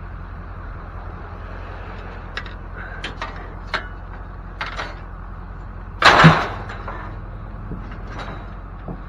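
Scrap metal being handled: a few light knocks and clinks, then one loud bang about six seconds in that rings briefly, over a steady low hum.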